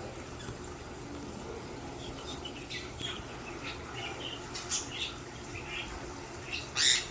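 Handling noise from opening reptile shipping packaging: scattered short rustles and squeaks, with one louder crackle near the end.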